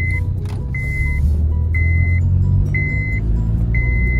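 Honda Civic cabin while pulling away and gathering speed: steady low engine and road rumble. Over it, a chime beeps about once a second, each beep about half a second long.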